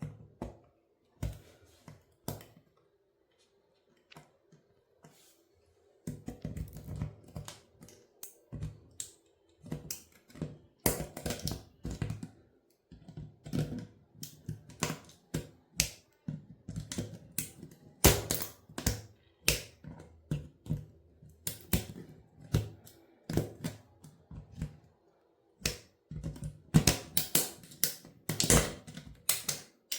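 A toy car being crushed, giving rapid, irregular clicks, cracks and crunches as its small parts break apart. The clicks are sparse at first and come thick and fast from about six seconds in.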